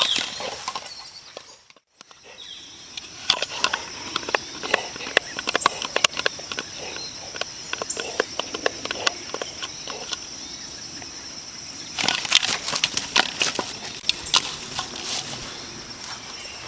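Yellow Labrador gnawing on a hard plastic Jolly Ball: teeth and jaws clicking and scraping on the plastic in quick, irregular clicks, with a louder burst of them a little after the middle.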